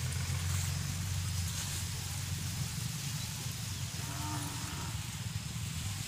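Low, steady wind rumble on the microphone, with a faint farm-animal call about four seconds in.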